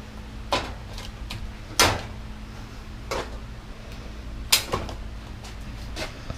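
Parts being taken off a washer/dryer combo during disassembly: scattered, irregular clicks and knocks, the sharpest about two seconds in and again about four and a half seconds in, over a faint steady low hum.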